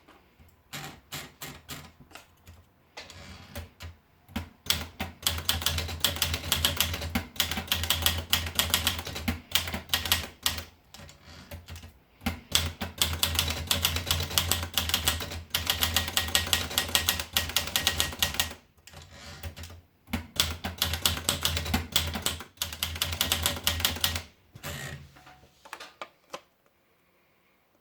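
Olivetti Dora manual portable typewriter being typed on: slow separate key strikes at first, then fast runs of keystrokes broken by short pauses, ending with a few last strokes.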